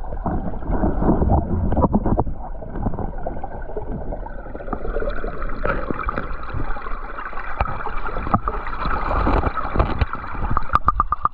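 Muffled rushing and gurgling of creek water heard through an underwater camera, with scattered clicks and scrapes as gravel is worked in a bedrock crack with tweezers. A quick run of clicks comes near the end.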